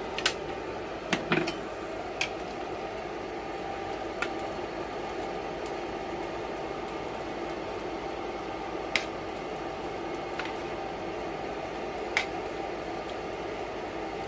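Sparse sharp clicks of a long thin metal utensil tapping against a bowl and pan as tuna salad is scraped onto an omelet, a few close together at the start and single ones later. Under them runs a steady low hiss from the pan and burner.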